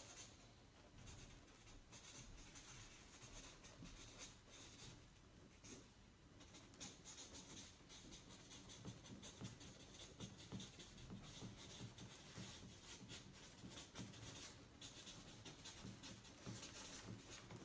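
Faint, continuous scratching of writing on paper: a felt marker on a flip-chart pad, with a pen on a notebook.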